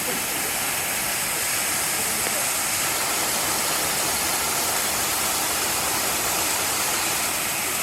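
Waterfall water rushing, a steady, even hiss.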